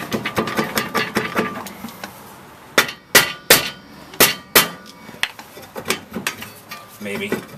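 Hammer striking a minivan's rusted rear brake rotor to break the rust holding it to the hub so it slides off the studs. Five sharp blows come in quick succession near the middle, followed by a few lighter knocks.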